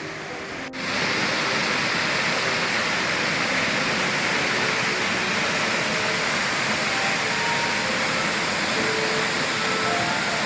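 Steady rushing roar of a mountain waterfall's falling water, starting abruptly just under a second in.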